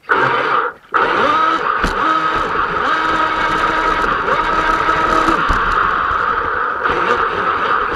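R/C speedboat running at speed, heard from its deck: the motor's whine rises about a second in as it picks up speed and then holds steady, under a constant rush of water spray and wind.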